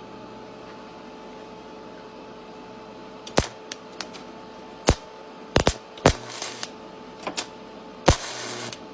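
Arc welder humming steadily while a fork is used to strike an arc. From about three seconds in come a string of sharp, irregular snaps and pops as the arc catches and breaks, then a brief crackling arc near the end.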